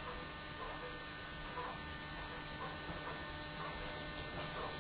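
Steady electrical hum, with a faint buzz and a few light ticks now and then.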